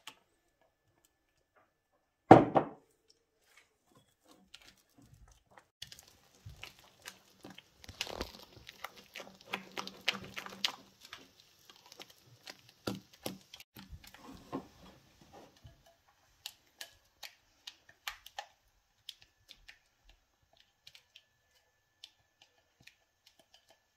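Silicone spatula scraping and folding thick cream cheesecake filling in a glass bowl: a run of soft clicks, scrapes and squelches, thinning to a few scattered ticks near the end. A single sharp knock about two seconds in is the loudest sound.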